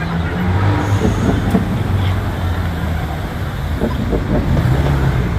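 Steady low rumble of outdoor city noise, street and crowd sound together, with faint voices in it and no firework bangs.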